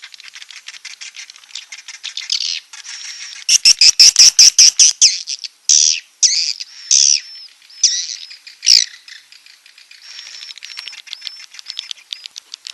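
Swiftlet calling-sound track of recorded swiftlet calls, played to lure swiftlets: fast runs of high twittering clicks and chirps. About four seconds in comes a loud run of rapid clicks, followed by five or so loud falling chirps, then quieter clicking again.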